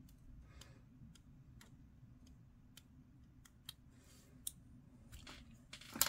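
Faint, irregular small clicks of a hobby knife blade cutting and scraping at a small plastic miniature part, trimming off a leftover sprue nub. A louder handling noise comes right at the end.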